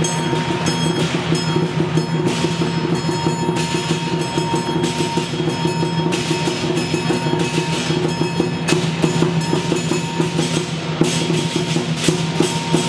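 Lion dance percussion: a Chinese lion drum beaten in a fast, even run of about five strokes a second, with hand cymbals clashing and ringing over it.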